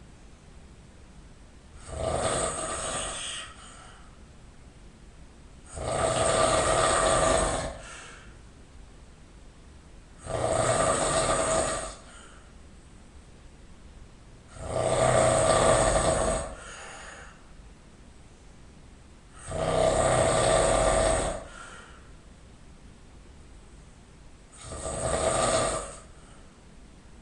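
A person snoring loudly: six long snores, each about one and a half to two seconds, coming every four to five seconds in a steady rhythm.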